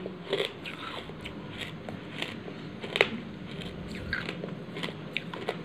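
Close-miked chewing of a hard, crunchy food: irregular crisp crunches and mouth clicks, the loudest about three seconds in.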